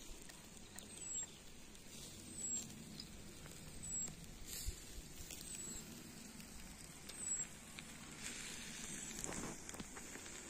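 Quiet open-air ambience in which a thin, high-pitched falling call repeats about every one and a half seconds, with scattered soft clicks and pops.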